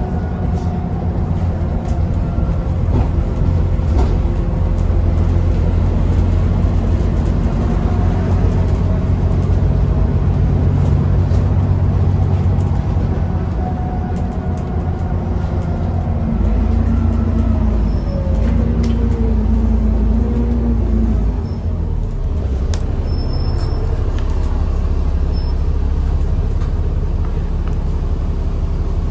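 Alexander Dennis Enviro400 E40D double-decker bus under way, heard from the lower deck: a steady diesel rumble with a whistling tone over it, which the uploader puts down to a turbo leak. Around the middle the whine falls in pitch as the engine eases off.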